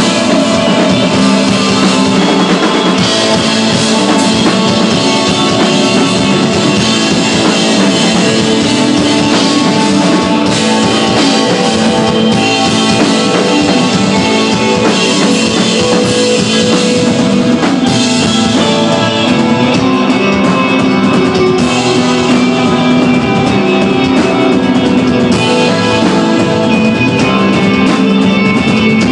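Rock band playing live: electric guitar, bass and drum kit in a steady, loud instrumental passage with no singing.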